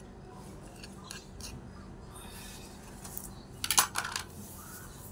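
Small clinks and scrapes of miniature kitchen utensils and board, with a short burst of sharp clattering about three and a half seconds in.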